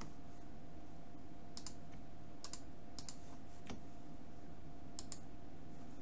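Computer mouse clicks, four of them, each a quick press-and-release pair, over a steady faint hum.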